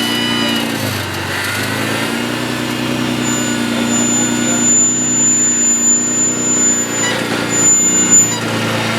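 Modified off-road competition truck's engine running under load; its revs drop about a second in and climb back up. A thin, high steady whine sounds from about three seconds in until near the end, with a few knocks close to the end.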